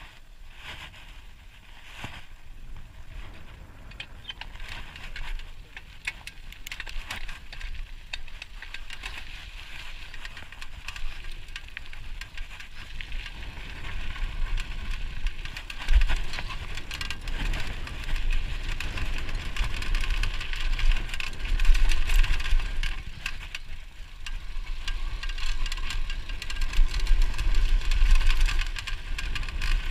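Cannondale Super V SL mountain bike running down a dirt and gravel trail: tyres crunching over the ground, many quick rattles and knocks from the bike over bumps, and a low rumble, all getting louder as speed builds from about halfway through.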